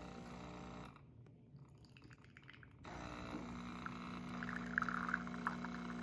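Instant Dual Pod Plus coffee maker brewing espresso from a Nespresso capsule: after a near-silent moment, its pump sets in with a steady low hum about three seconds in. Espresso spits and trickles into a glass cup around five seconds in.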